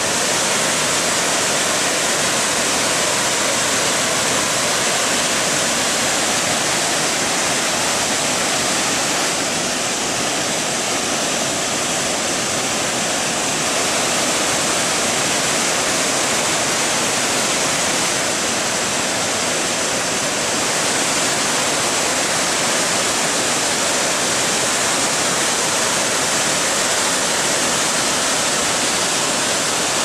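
A large waterfall's falling water rushing as a steady, unbroken roar.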